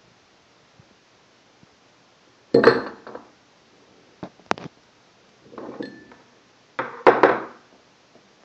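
Metal forks clattering and clinking against a drinking glass and a tabletop, in four bursts a second or so apart, the loudest about two and a half seconds in and near the end; one strike leaves a short ringing tone.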